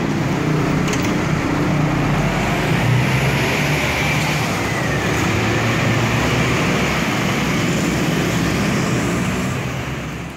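Scania K360 bus engine running steadily with road and traffic noise, fading out at the very end.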